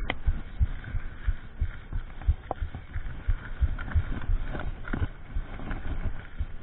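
Mountain bike riding over a rough dirt trail: a rapid, uneven run of low thumps and knocks as the bike and camera jolt over bumps, with a couple of sharper clicks.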